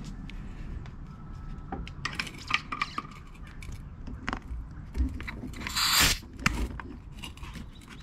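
Brass quick-connect coupler on a compressed-air hose clicking and clinking as it is pushed onto the smoke tester's air regulator inlet, with a short hiss of air late on as the coupling seats.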